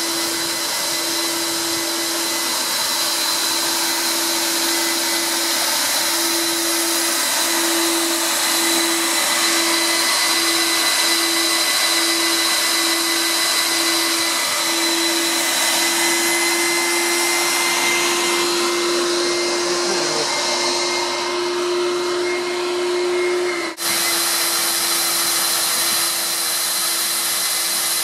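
DAKOTA pool vacuum's motor running steadily as it sucks water and debris through the hose, with a hum that wavers during the first half and then holds steady. The sound drops out briefly once, a few seconds before the end.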